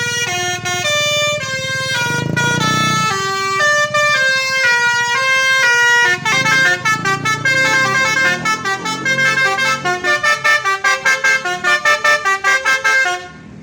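A bus's 'telolet' musical horn plays a tune of held notes that step from pitch to pitch. About halfway through it breaks into a fast run of short staccato notes, which stop abruptly just before the end.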